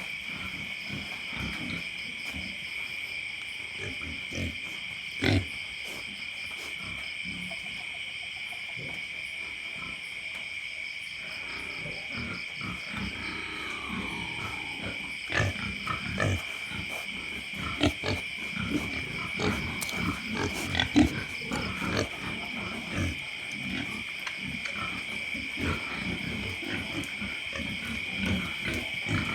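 Loud steady chorus of night insects, a continuous high trill, over pigs in a pen snoring and grunting low and irregularly, with a few louder grunts in the second half.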